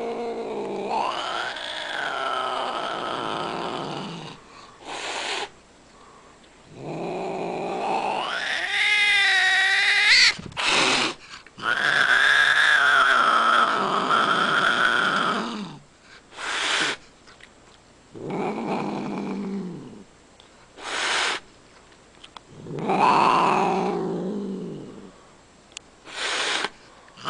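Angry domestic cat yowling and growling in long, drawn-out calls that waver in pitch, with short hisses between them.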